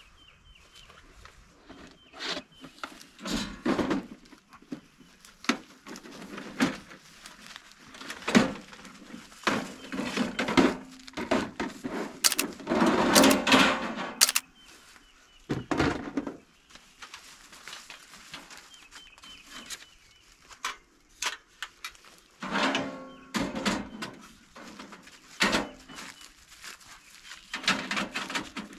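Irregular knocks, clunks and clatter of camping gear being handled and set out on a vehicle's tailgate table, with the busiest, loudest clatter about halfway through.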